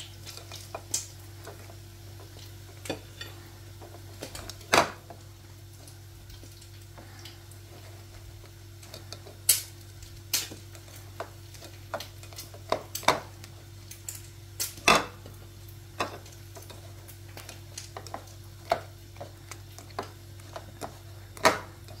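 Irregular light clicks and knocks of plates and a plastic bowl being handled while bread slices are dipped in beaten egg, two of them sharper knocks, over a steady low hum.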